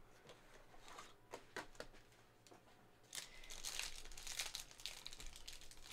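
Trading card pack being opened by hand: a few faint taps and rustles, then from about three seconds in a stretch of crinkling and tearing as the wrapper is ripped open.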